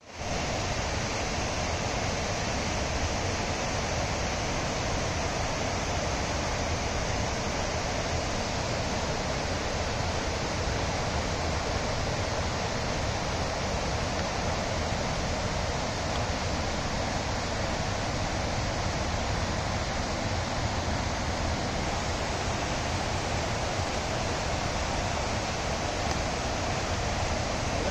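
Steady, unchanging rush of falling water.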